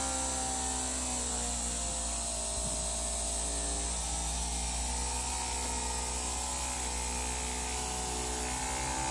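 Handheld electric barber's massager, strapped to the back of the hand, running with a steady motor hum whose pitch wavers slightly as it is worked over the scalp.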